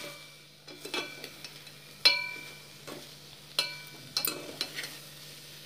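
A metal spoon stirring soft boiled ivy gourd pieces in a pressure cooker pot. The spoon clinks against the pot about four times, and each clink rings briefly; the loudest comes about two seconds in. A faint steady hum runs underneath.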